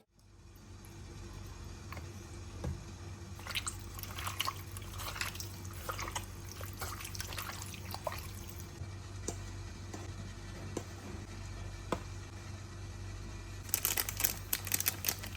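Wet kitchen handling sounds: liquid dripping and squishing with scattered light clicks and knocks, which bunch together near the end, over a steady low hum.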